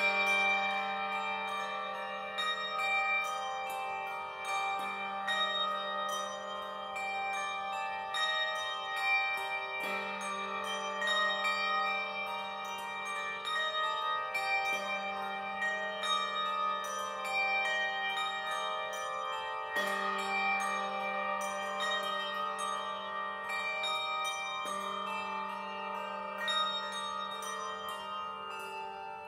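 Handbell choir playing a piece: brass handbells struck in a steady stream of overlapping, ringing notes, over a low bass note that changes about every five seconds.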